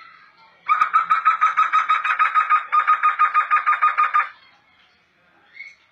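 Black laughingthrush (poksay hitam) calling a fast, even run of repeated notes, about six a second, for about three and a half seconds, starting about a second in with a short break midway.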